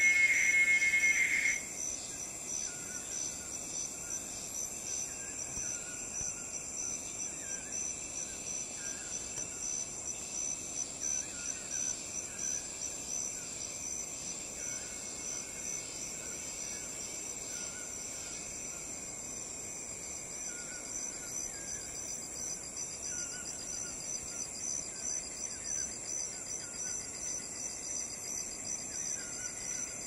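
Rainforest ambience: a steady, high, fast-pulsing insect chorus with faint short animal calls repeating every second or two. A loud high whistling tone cuts off suddenly at the start.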